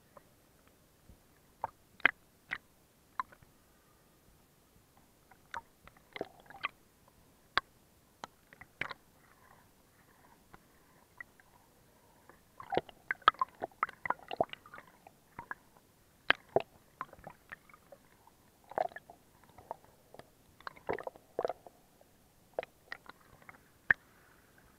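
Water lapping and gurgling against a camera held half in and half out of the sea surface, heard as scattered sharp clicks and small wet pops. They are sparse at first and come in thicker clusters about halfway through and near the end.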